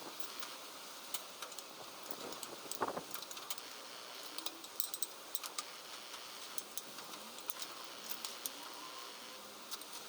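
Small metal tools or parts clinking and ticking lightly and irregularly, many short clicks over a steady hiss.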